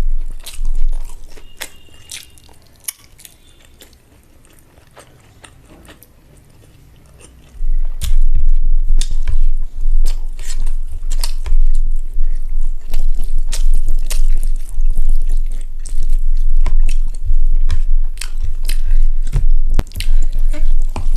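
Close-miked chewing of rice and egg curry: wet mouth clicks and smacks over a low thumping. It is quiet for the first several seconds, then the chewing is loud from about seven and a half seconds in.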